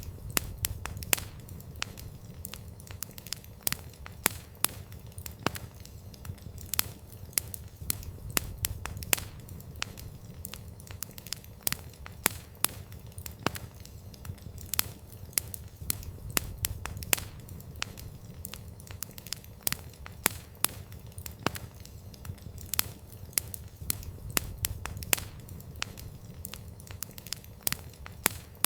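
Campfire burning: burning wood crackling and popping in sharp, irregular snaps over a low steady rumble of the flames.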